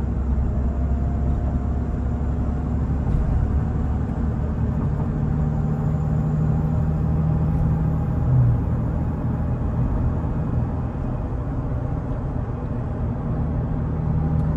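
2003 Toyota Tacoma pickup driving in fifth gear, heard from inside the cab: steady engine drone with tyre and road rumble. The engine note rises slowly as the truck gains speed, with a brief louder bump about eight seconds in.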